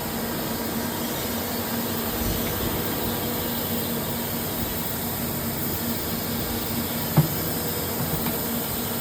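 Steady running noise of a CNC machine shop floor: an even hiss and hum from machinery, with one short knock about seven seconds in.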